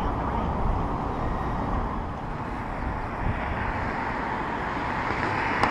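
Steady noise of riding a bicycle beside a multi-lane road with car traffic: wind on the bike-mounted camera's microphone mixed with road and traffic noise.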